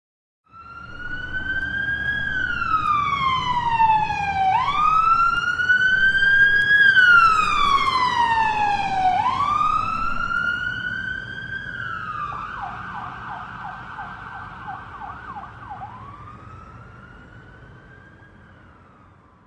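Siren wailing, each sweep rising quickly and falling slowly about every four and a half seconds. About two-thirds of the way through it switches to a fast warble, then gives one more slow rise, fading gradually over the second half.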